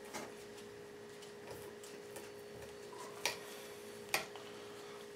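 Faint handling sounds of a knife and gloved hands working a mink pelt hung from a metal clamp: a few short sharp clicks, the clearest about three and four seconds in, over a steady low hum.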